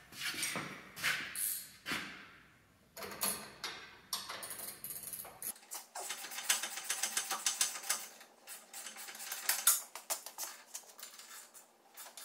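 Hand tools working on a suspension: metal clinks, then bursts of rapid ratchet-wrench clicking as the sway bar link nuts are worked loose.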